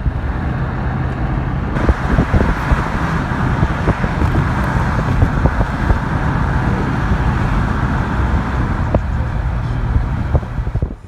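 A car on the move: steady engine and road noise with a low hum and a few light knocks, cutting off suddenly at the end.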